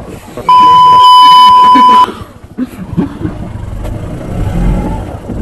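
A loud, steady, single-pitched electronic beep lasting about a second and a half, of the kind edited in as a censor bleep. It is followed by a low motorcycle engine rumble.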